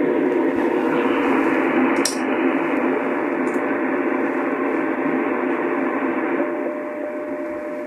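Sony CRF-320 shortwave receiver's loudspeaker hissing with static, with no station coming through. There is a click about two seconds in, and a faint steady whistle comes in near the end.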